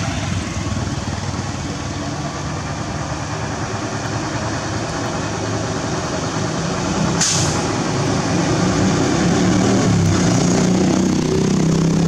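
Heavy diesel engine of a truck or equipment running steadily, with a short hiss of air about seven seconds in. The engine gets louder over the last few seconds.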